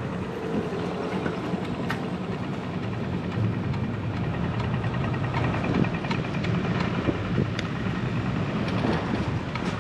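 Steady city street traffic noise heard from a moving bicycle, with a low hum of passing vehicles and a few faint ticks.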